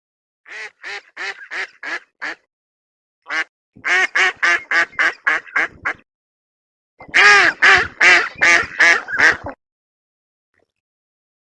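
A duck quacking repeatedly in three quick runs of calls, about four quacks a second, the last run the loudest.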